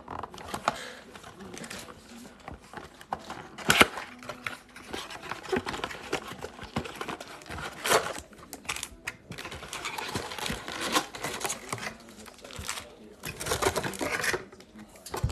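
Cardboard box and foil-wrapped trading card packs being handled: irregular rustling with sharp clicks and taps, a few louder knocks about four and eight seconds in.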